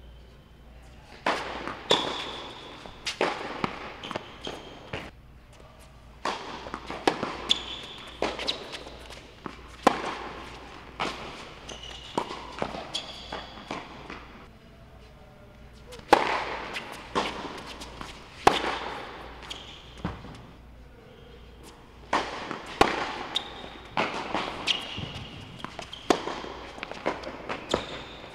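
Tennis rally on an indoor hard court: sharp pops of the ball struck by rackets and bouncing on the court, about one a second in runs with short pauses between points, echoing off the hall, with short high squeaks of shoes on the court between hits.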